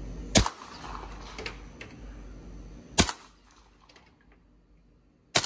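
Three suppressed gunshots about two and a half seconds apart from a Krebs Custom 9x39 AK pistol firing subsonic Wolf 9x39 rounds through a home-built Form 1 suppressor, each a sharp, muffled crack with a short tail.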